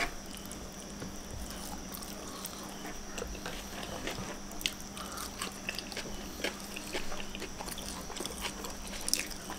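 Close-up eating sounds of hands picking at fried ikan caru (hardtail scad) in sambal on a tray and mouths chewing, with scattered small clicks and lip smacks. A faint steady hum runs underneath.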